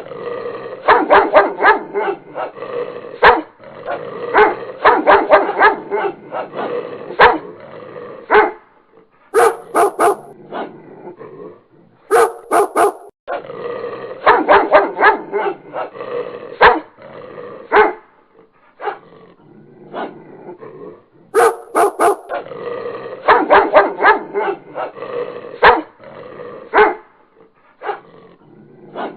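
A dog barking in repeated volleys of sharp barks, each volley lasting several seconds, with short pauses between them.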